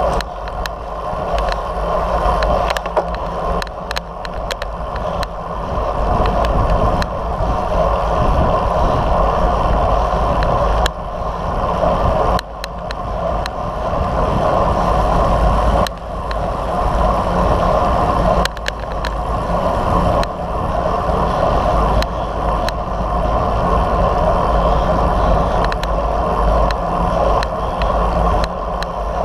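Wind rushing over the microphone of a camera on a moving road bicycle, with the bike's tyres running on asphalt beneath it. The noise is loud and steady, dipping briefly a few times.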